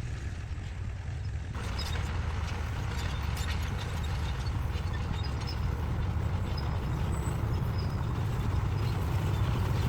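A heavy construction machine's engine running steadily, with a rattling clatter of metal and material joining in about a second and a half in.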